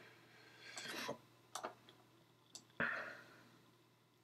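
A few faint, separate computer mouse clicks.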